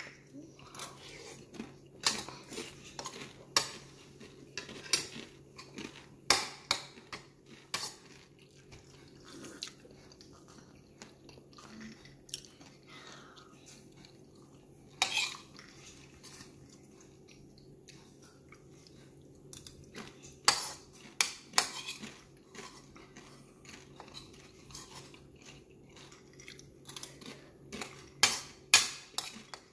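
A metal fork and spoon click and scrape against a plastic bowl in irregular bursts while noodles are eaten, with chewing between the clicks.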